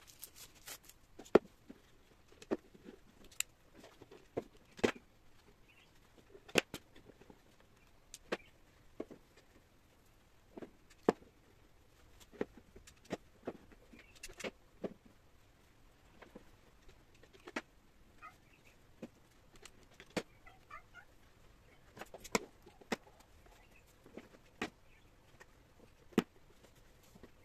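Irregular light taps and knocks, roughly one a second, from hands working a small hot glue gun and a terracotta pot being wrapped in jute ribbon on a tabletop.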